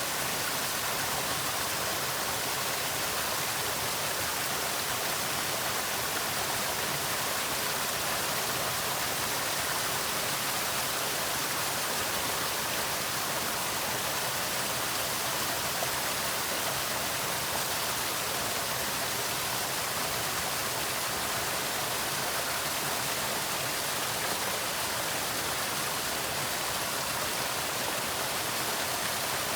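Small waterfall with water pouring and splashing in a steady, even rush that does not change.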